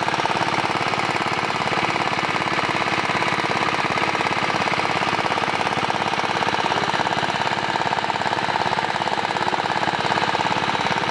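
A small engine running steadily at a fast, even knocking beat, without change in speed.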